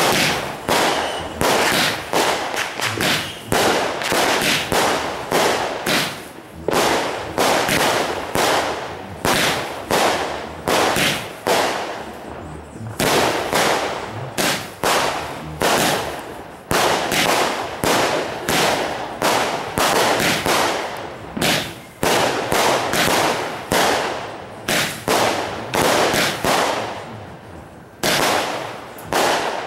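Consumer aerial fireworks, a multi-shot repeater cake, firing a long rapid string of shots: sharp bangs about one or two a second, each with a short crackling tail, with brief lulls twice.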